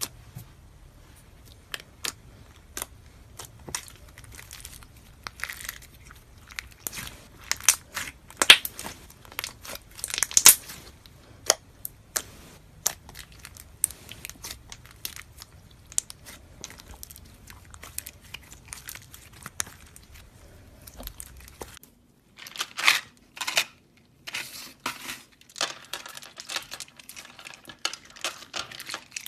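Slime being squeezed and pressed by hand, giving many sharp, irregular crackles and pops. About two-thirds of the way through the sound cuts abruptly to another slime clip with denser crackling.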